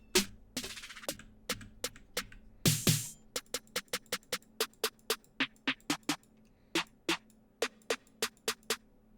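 Programmed trap drum pattern playing on its own: short, evenly spaced hi-hat-like ticks with a louder snare hit about three seconds in.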